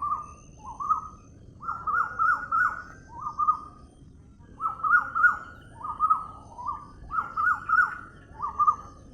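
A bird calling over and over: about ten short phrases of one to four quick, clear notes each, with brief pauses between them.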